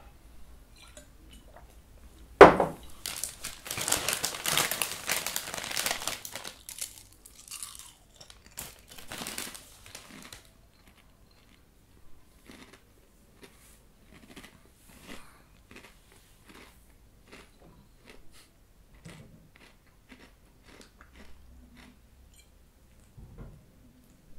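A sharp snap about two and a half seconds in, then several seconds of crinkling packaging, then scattered crunches of someone eating crisps.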